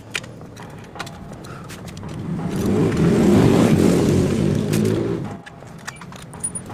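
A motorbike engine swells up over about a second, runs loud for a couple of seconds, then drops away suddenly, with a few light clicks before and after.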